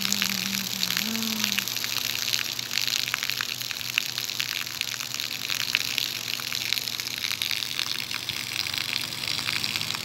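A thin stream of water pouring from a fountain sculpture into a pond, splashing steadily with a fine crackling patter.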